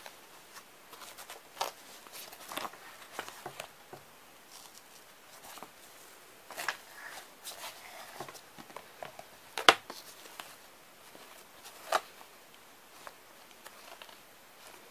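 Handling noise from a fabric cartoon-style shoulder bag being opened and examined: scattered rustles with irregular sharp clicks and taps. The loudest click comes a little under ten seconds in, and another follows about two seconds later.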